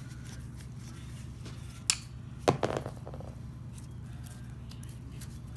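Two sharp clicks about half a second apart, the second with a brief ringing, as screws are worked out of an old grinder's switch housing, over a steady low hum.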